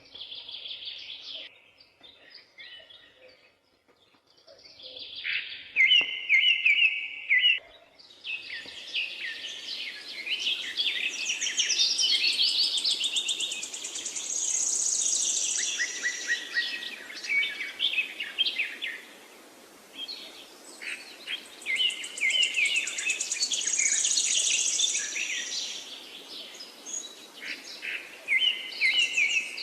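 Several songbirds singing at once, quick chirps and trills; sparse at first, then a dense chorus from about eight seconds in, over a faint background hiss.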